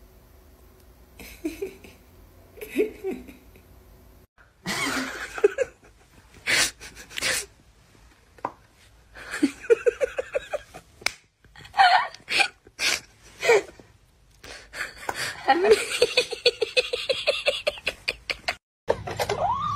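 A person laughing in repeated fits of quick, pulsing giggles with gasping breaths between, after a quiet start.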